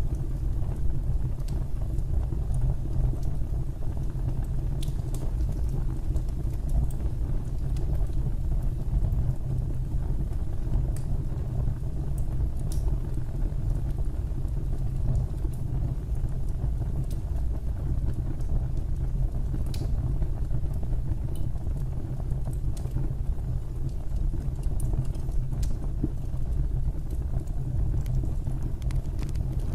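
Fireplace fire burning with a steady low rumble and scattered sharp crackles and pops every second or two.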